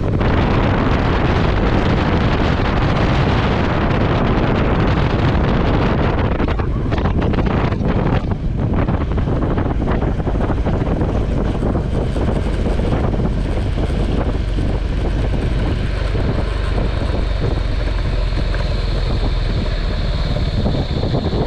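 Wind rushing hard over the microphone of a moving KTM 390 Adventure, with its single-cylinder engine running underneath.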